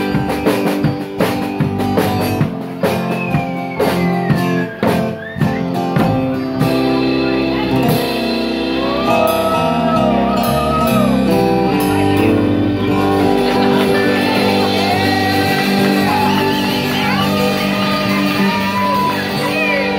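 Live band playing rock music: a Ludwig drum kit hits hard and busy for the first six seconds or so, then the music settles into a steadier stretch with a wavering lead melody over sustained bass notes.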